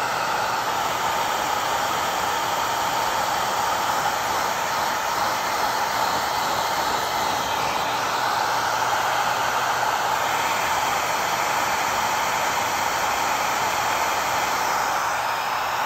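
Handheld hot-air blower running steadily, its air stream directed at a PVC inflatable to heat and release a spot where the vinyl has stuck to itself.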